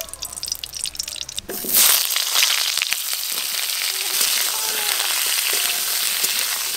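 Pieces of pointed gourd (potol) hitting hot mustard oil in an aluminium wok. The sizzling starts suddenly about a second and a half in, then goes on as a steady, loud frying hiss while the pieces are stirred.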